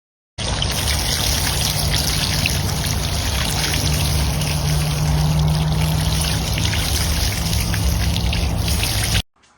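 Steady rush of running water with a low hum underneath, starting abruptly and cutting off suddenly near the end.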